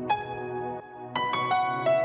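Background music: an electronic track with struck piano-like notes and chords, several new notes coming in quick succession about a second in.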